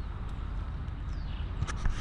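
A steady low rumble of outdoor noise, with a couple of faint descending whistles and a few sharp clicks near the end, as the fishing rods are handled.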